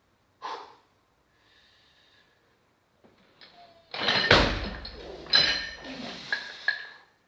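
A weightlifter cleans a barbell loaded with bumper plates. A sharp breath comes first. A little after four seconds in there is a loud thud as the bar is pulled and caught on the shoulders, followed by several metallic clanks of the plates and collars rattling on the bar.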